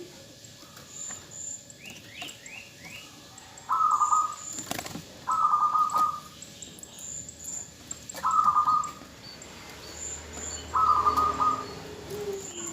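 Female zebra dove (perkutut) calling: four short, rapidly pulsed coos spaced a couple of seconds apart, the call used to draw male zebra doves into song. Faint chirps of small birds sound between the coos.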